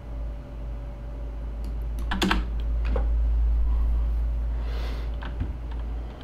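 Desk clicks from computer mouse handling during a chess move: a quick cluster of clicks about two seconds in and a single click a second later. A steady low hum runs underneath, and a soft rustle comes near the end.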